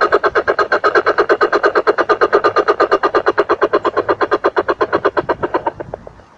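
Lesser coucal calling: a long, rapid run of repeated notes, about ten a second, that fades and stops near the end.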